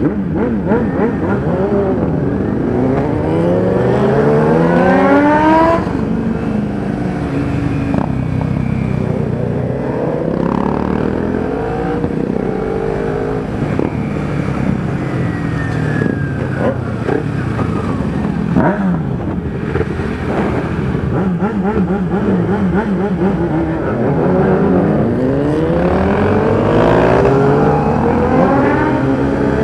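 Sport motorcycle engines accelerating through the gears, the pitch climbing and dropping at each shift, with the steepest climbs near the start and again near the end. Heard from a microphone inside a rider's helmet, over wind and road noise.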